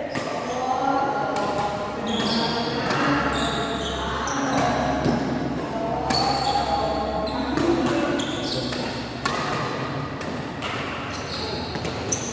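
Badminton play: repeated sharp racket hits on the shuttlecock and short high squeaks, with people talking throughout.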